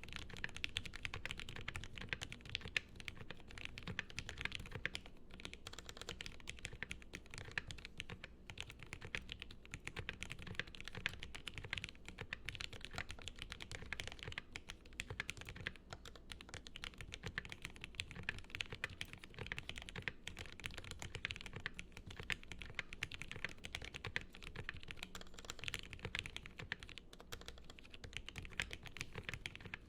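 Continuous fast typing on a Noxary Vulcan gasket-mounted custom mechanical keyboard with lubed Gateron Yellow linear switches and CRP APL keycaps: a dense, unbroken stream of keystrokes.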